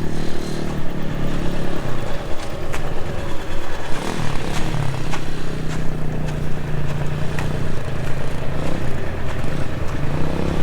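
Hawk 250 dirt bike's single-cylinder four-stroke engine running as it is ridden, its note dropping about two seconds in, holding steady, then rising again near the end.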